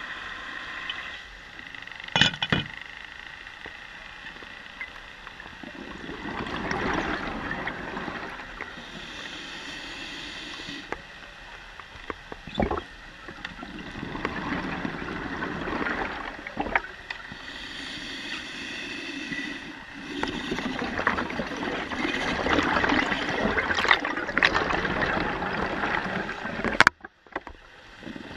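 Underwater, a diver's exhaled bubbles rushing and gurgling in slow swells that come and go every several seconds, with a few sharp knocks, the loudest near the end.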